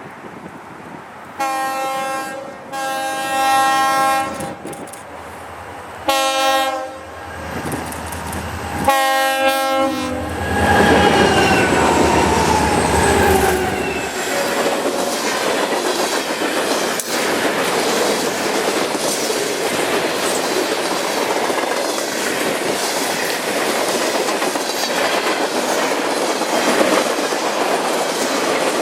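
Lead EMD freight locomotive sounding its Nathan K5LA five-chime horn in a long, long, short, long pattern, the grade-crossing signal. Then the locomotives pass and the freight cars roll by with a steady clickety-clack of wheels over rail joints.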